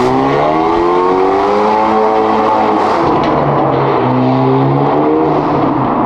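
2024 Hyundai Elantra N's turbocharged four-cylinder accelerating hard through a resonator-deleted titanium mid-pipe and the stock exhaust. The pitch climbs, drops about halfway through, climbs again, then eases off near the end.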